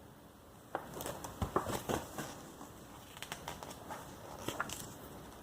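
Magazine pages rustling and crackling as they are handled and turned, an irregular run of small paper clicks starting under a second in.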